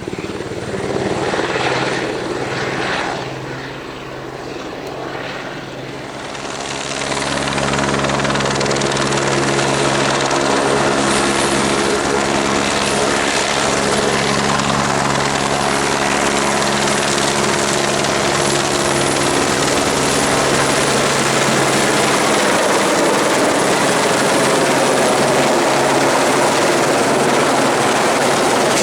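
Helicopter running, its rotor and engine noise swelling about six seconds in and then holding steady and loud.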